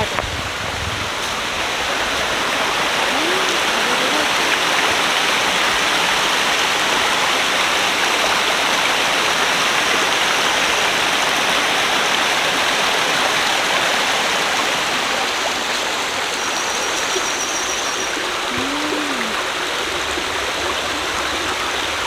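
Shallow mountain stream running over rocks: a steady splashing hiss of water, a little louder for several seconds in the first half.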